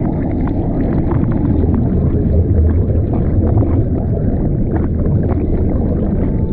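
Water rushing over a camera moving through the sea, sounding muffled, with a steady low drone underneath and many small crackles.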